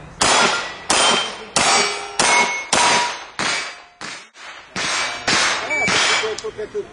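About ten handgun shots in quick succession, roughly one every 0.6 seconds. Each is followed by the ringing clang of a steel target plate being hit.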